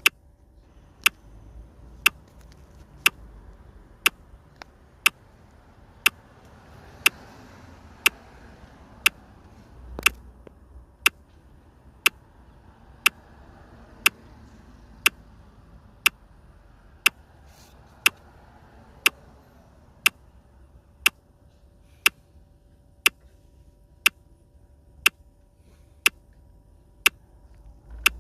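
Sharp, evenly spaced ticks, about one a second, over a faint steady hum.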